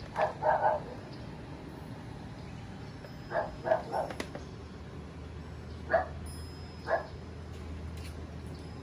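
Shiba Inu barking in short, sharp barks: a quick run of two or three at the start, three more about three and a half seconds in, then two single barks near the end.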